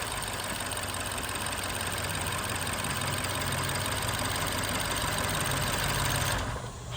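BMW N63 twin-turbo V8 idling steadily in the engine bay, running with a misfire on cylinder 4. Near the end the sound drops off sharply and becomes quieter.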